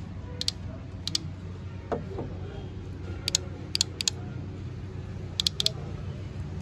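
Automatic transmission solenoids on a valve body clicking as wires from a 12-volt car battery are touched to them: about seven sharp clicks, some in quick pairs, over a steady low hum.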